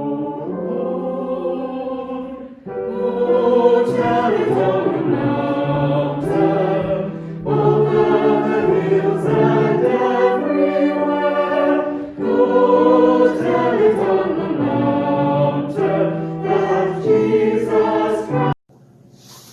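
Choir singing in long sung phrases, ending abruptly near the end.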